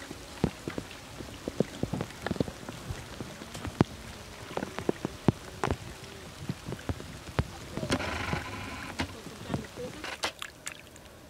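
Shallow muddy water splashing and dripping in irregular sharp splashes as a person wades through a flooded rice paddy and scoops mud by hand. A longer, fuller splash comes about eight seconds in.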